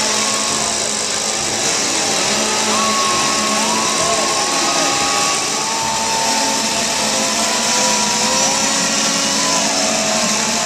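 A large crowd yelling and cheering together in a steady roar, with single long screams and whoops rising and falling above it.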